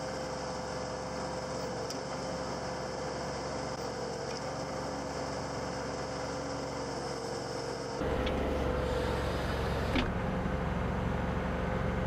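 Backhoe tractor's engine running steadily; about eight seconds in it gets louder, with a deeper rumble.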